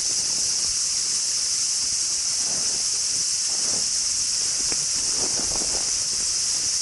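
Steady, high-pitched chorus of summer insects, with a few faint scattered crackles in the middle.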